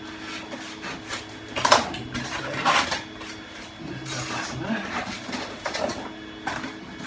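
Styrodur foam boards being handled and laid down: scraping, rubbing and knocking of rigid foam against foam and the baseboard, with two louder scrapes about two and three seconds in. A faint steady hum runs underneath.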